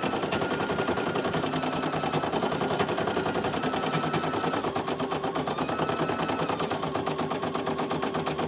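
Brother PE800 single-needle embroidery machine stitching a design at speed: a rapid, even clatter of needle strokes, with a motor whine underneath that shifts in pitch now and then.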